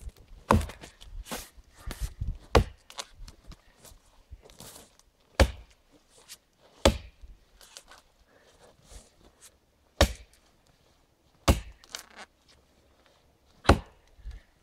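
Fiskars axe chopping into the trunk of a small standing tree: about eight single sharp blows, irregularly spaced one to three seconds apart, with faint shuffling in snow and brush between them.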